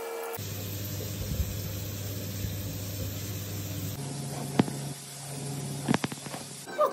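Bathroom tap running into a sink, a steady hiss of water with splashing as water is scooped onto the face, and two sharp clicks near the end.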